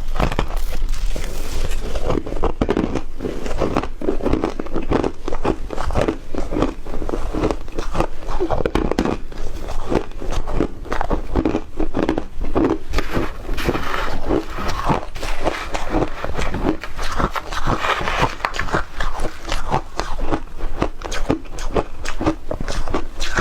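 Close-up crunching and chewing of shaved ice: a continuous run of crisp, rapid bites and crunches.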